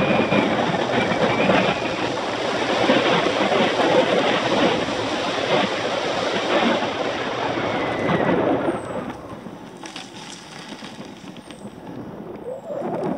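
Wind rushing over the microphone and tyre rumble from a bicycle running fast downhill on rough asphalt. The noise falls away about two-thirds of the way through and builds again near the end.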